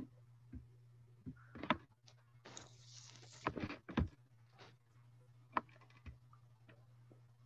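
Faint, scattered clicks and knocks in a small room, with a short hiss about two and a half seconds in, over a steady low hum.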